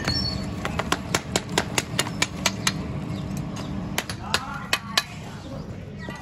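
Hammer knocking sand-cast aluminium parts free of their broken sand moulds: a quick run of sharp taps, about four a second, then a few spaced knocks, over a steady low rumble.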